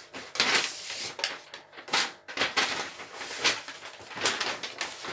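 Brown paper shopping bag and plastic wrapping rustling and crinkling as they are handled and items are pulled out, a continuous run of irregular crackles and swishes.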